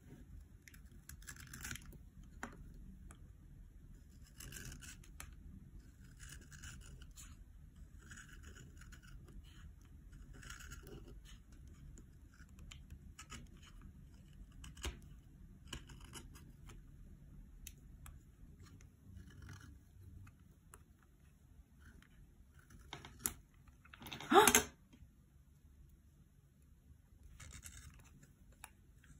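Wooden pencil being sharpened with a snap-off utility knife: the blade shaves the wood in short repeated scraping strokes, about one every second or two. One much louder noise stands out about three-quarters of the way through.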